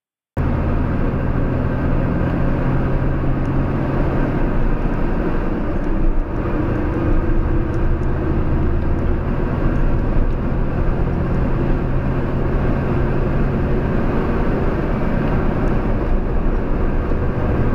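Steady in-cabin engine and road noise of a vehicle driving along at country-road speed, picked up by a dash cam's microphone, starting abruptly just after the beginning with a brief break about six seconds in.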